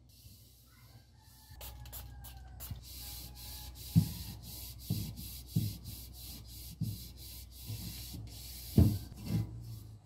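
Damp cloth wiping the glass shelf and plastic walls inside a refrigerator: rubbing strokes, with faint squeaks of the cloth about two seconds in and a few soft knocks against the shelf, the loudest about four seconds in and near the end.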